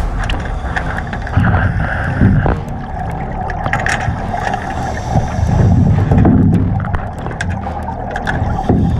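Scuba divers' exhaled bubbles from their regulators gurgling and rumbling, heard through an underwater camera, with surges every few seconds over a steady background hiss.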